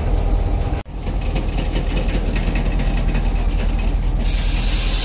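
Container freight train passing at close range: steady low rumble of the diesel locomotive and wagons running on the rails. A loud, high hiss sets in near the end.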